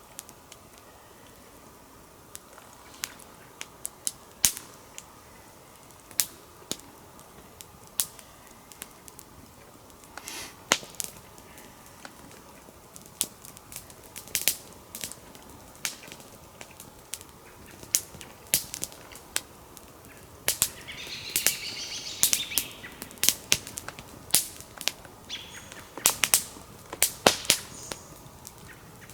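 Small wood campfire crackling, with irregular sharp pops from burning twigs and dead wood, growing more frequent near the end.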